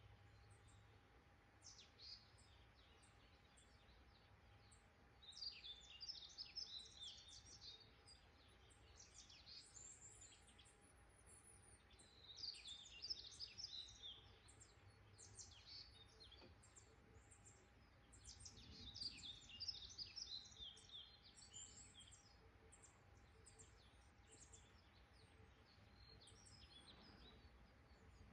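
Songbirds chirping in woodland: scattered clusters of quick, high chirps and short trills every few seconds, faint over a low background hiss.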